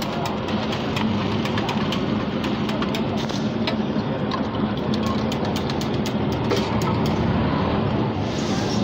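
Food frying on a large oiled flat iron griddle, the oil crackling with many short sharp ticks, over a steady low rumble and background voices.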